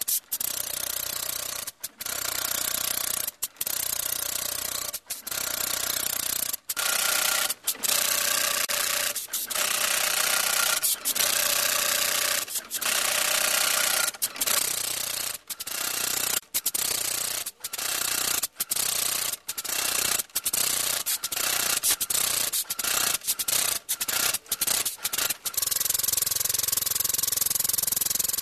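Hitex robotic hand-tufting machine's tufting gun running, a dense hissing noise that cuts out briefly and restarts many times in quick succession, then runs on without breaks near the end.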